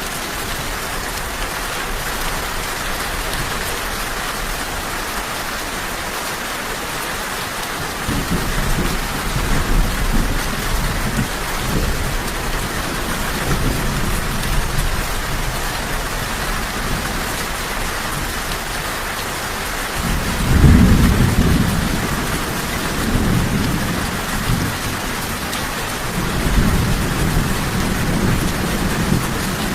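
Steady rain falling, with rolls of distant thunder. Low rumbles come in about a quarter of the way through, the loudest swells about two-thirds through, and another rumble comes near the end.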